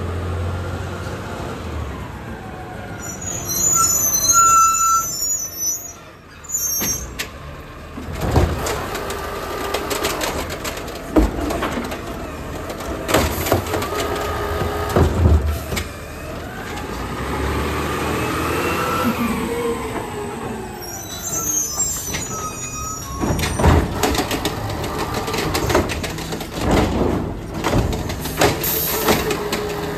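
Automated side-loader garbage truck at work: the diesel engine runs and rises, then falls, in pitch as the hydraulic arm lifts and tips a wheelie bin. Sharp bangs and knocks come from the bins and the arm, and high brake squeals come a few seconds in and again about two-thirds of the way through.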